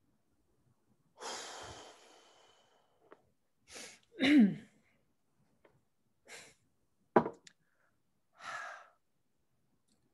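A person's long sigh, then a few short breaths, a brief voiced murmur falling in pitch and a single sharp click, picked up close on a webcam microphone.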